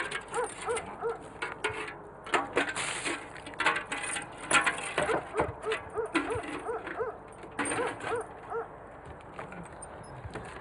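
A metal pail clanking and knocking against a wooden well house, with a run of short squeaks about three a second through much of it.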